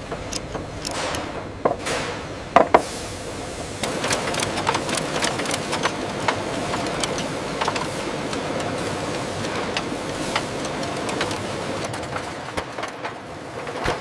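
Machine-shop clatter: a steady machinery hum under irregular metallic clicks and clanks, with two sharper knocks about two and a half seconds in.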